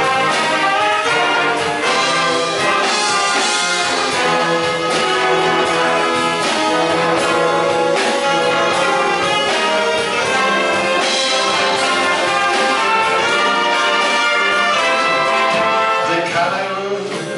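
Concert wind band playing live: brass, saxophones and flutes over a drum kit, steady and full throughout, easing off a little near the end.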